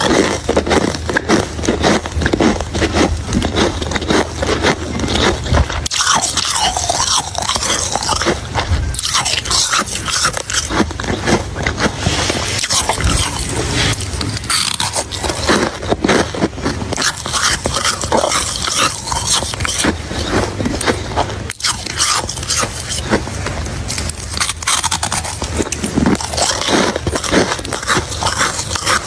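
Ice being bitten and chewed: a steady, dense run of loud crisp crunches and cracks.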